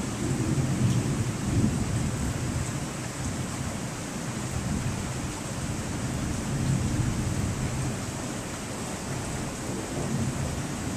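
Rain falling steadily while thunder rumbles low, swelling and fading a few times.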